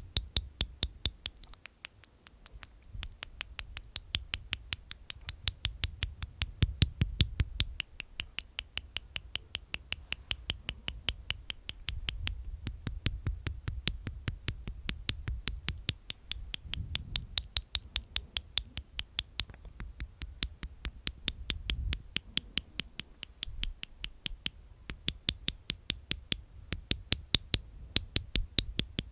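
Close-miked ASMR mouth sounds: wet clicking made inside the mouth with the tongue and teeth, in a fast, even run of about five or six clicks a second.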